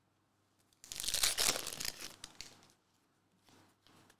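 The foil wrapper of a Panini NBA Hoops trading card pack being torn open: a loud crinkling rip about a second in that lasts about a second, then fainter rustling as the cards are slid out.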